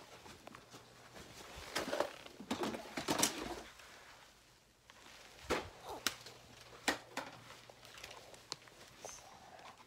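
Rustling handling noise from a handheld phone camera being moved about, followed by several sharp, separate taps and knocks.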